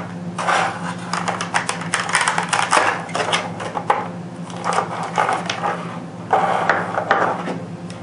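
Stiff clear plastic clamshell packaging being handled and pulled apart, crackling and clicking in irregular bursts as a weapon light is freed from its tray.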